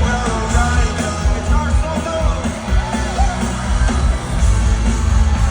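Rock music with a singing voice over a heavy, steady bass.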